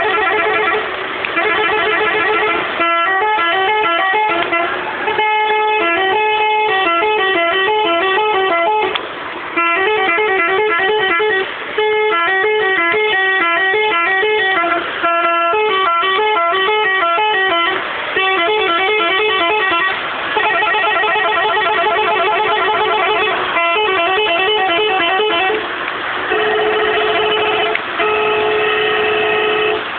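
Telolet multi-tone air horn on a water tanker truck playing fast melodic tunes, its notes changing several times a second, in phrases broken by short pauses.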